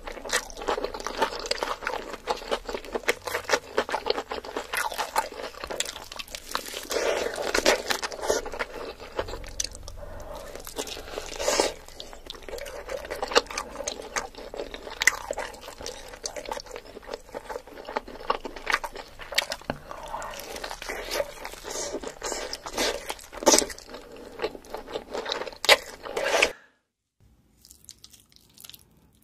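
Close-miked crunching, biting and chewing as a person eats crisp-skinned chicken, in a dense, irregular stream of crackles and crunches. It stops abruptly about three seconds before the end, leaving only faint sounds.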